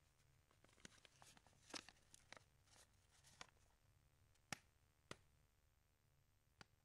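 Near silence: faint room tone with a scattering of soft clicks and paper rustles from a sheet of paper being handled at a desk, the loudest about two seconds in and again about four and a half seconds in.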